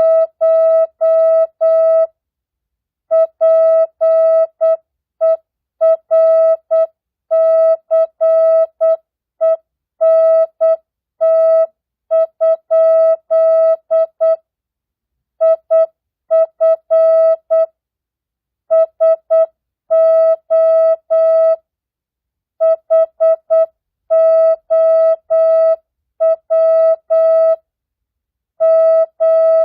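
Morse code (CW) practice tone at 8 words per minute, non-Farnsworth: a single steady beep keyed on and off in short dots and longer dashes, with short gaps between characters and longer pauses between words.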